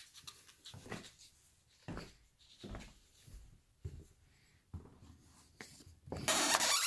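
Scattered light knocks and rustles of things being picked up and carried, then about six seconds in a sudden loud rush as a glass patio door is opened to the outside.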